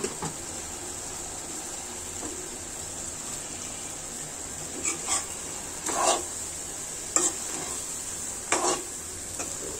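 Spatula stirring a simmering curry of greens, potato and chickpeas in a metal pan: several short scraping strokes against the pan in the second half, over a steady sizzle.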